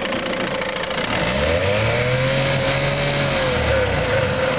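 1973 Chrysler 8 hp two-stroke outboard motor running under way. Its engine speed rises about a second in, holds, then drops back near the end.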